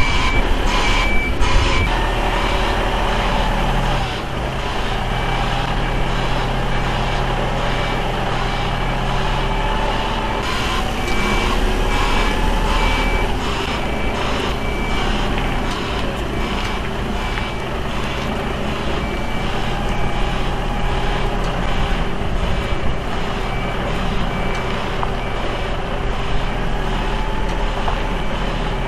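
Mercedes-Benz heavy-haulage tractor unit's diesel engine running under load as it pulls a heavy low-loader at walking pace, its note rising and falling. A high warning beeper sounds in an even, repeating run of beeps throughout.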